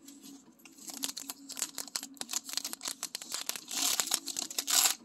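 Foil Pokémon booster pack wrapper crinkling in the hands, then torn open, with the loudest tearing and crinkling about four seconds in.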